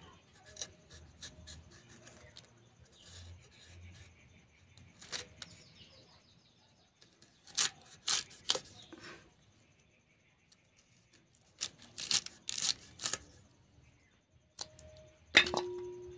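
Raw green mango being pared and cut against a boti's curved iron blade: scattered sharp scraping strokes with quiet gaps between them. Near the end a cut piece drops into a stainless steel bowl with a loud clang that rings on for about a second.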